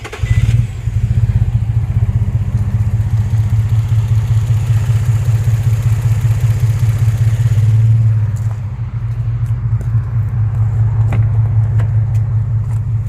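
A 2003 Infiniti G35's 3.5-litre V6 catches right after a brief crank and runs at idle, still misfiring with the mass airflow sensor unplugged.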